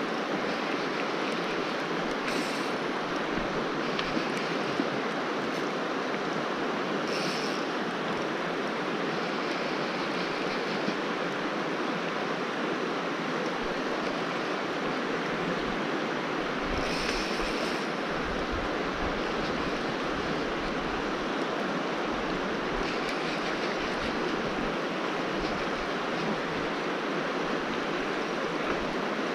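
Steady rush of a fast-flowing river running over shallow gravel riffles, with a few brief higher hisses over it.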